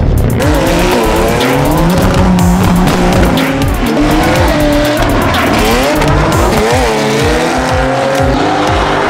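Drift cars' engines revving, their pitch rising and falling over and over, with tyres squealing as the cars slide sideways.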